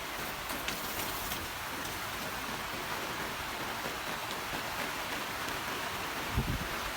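Steady rain falling, with a few sharp drop ticks in the first second or so and a brief low thump about six and a half seconds in.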